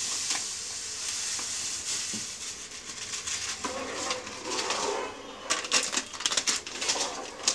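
About 2.5 kg of granulated sugar poured from a plastic bag into a large aluminium pot of cooking rice and khoa, a soft hiss, then a ladle stirring in the pot and the bag handled, with a run of sharp clicks and rustles in the last two seconds.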